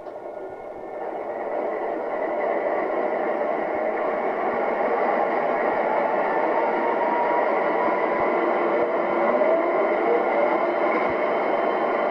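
The onboard sound system of an MTH O-gauge GE ES44AC model locomotive plays a diesel engine start-up: the engine sound builds over the first couple of seconds, then runs steadily, with a rising whine near the end.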